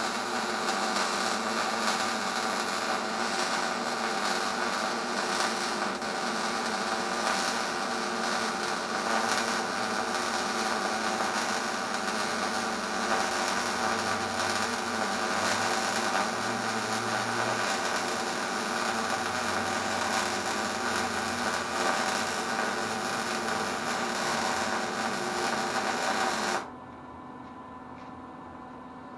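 Electric arc welding: the arc's steady crackling buzz runs unbroken, then cuts off abruptly near the end as the weld stops, leaving a faint hum.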